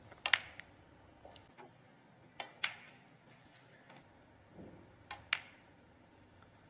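Snooker balls clicking: the hard crack of cue tip and ball on ball, in three quick pairs a couple of seconds apart, the first pair the loudest.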